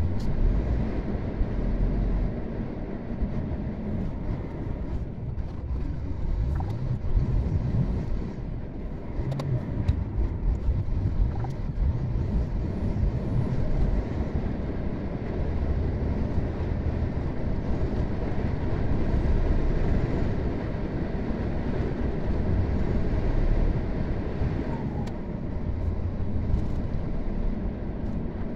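A car driving along a road, heard as a steady low rumble of road, tyre and wind noise with a hiss on top.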